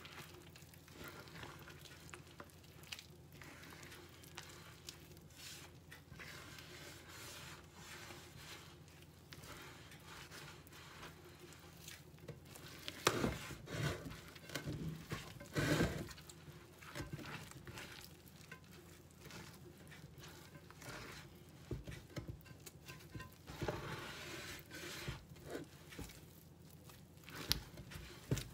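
Hand kneading soft bread dough in a large bowl: irregular squishing and rubbing, with louder slaps and knocks against the bowl about halfway through and again near the end.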